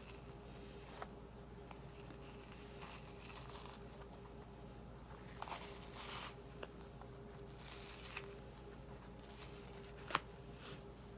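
Faint rustling and scraping as a cut-open plastic toy Poke Ball is handled, with a few small clicks and one sharp click about ten seconds in.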